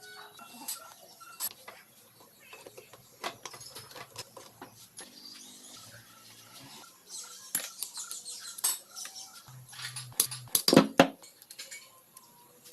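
Small metal parts and hand tools clinking and tapping, irregular light clicks with a cluster of louder knocks about ten to eleven seconds in, typical of work on a motorcycle engine being taken apart.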